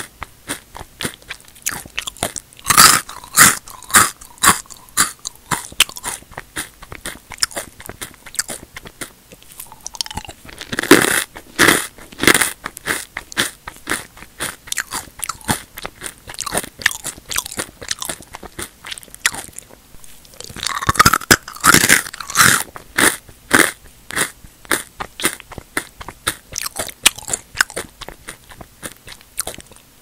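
Crunchy square potato and sweet potato chips being bitten and chewed close to the mouth. Several loud crisp bites come in bunches, about three seconds in, eleven seconds in and twenty-one seconds in, with a steady run of quieter crunching chews between them.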